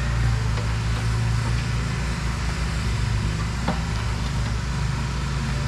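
A steady low mechanical hum, like a running engine, with a faint click about three and a half seconds in.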